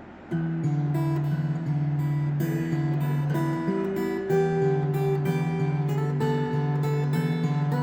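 PRS SE Angelus A60E acoustic-electric guitar being strummed, a run of changing chords starting about a third of a second in, with a warm tone.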